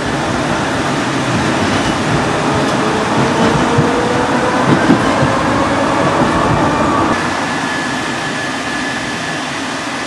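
71-630 tram car running along the track, heard from inside the cab: a steady rumble of wheels and running gear, with a faint whine slowly rising in pitch in the middle as the car pulls under traction power.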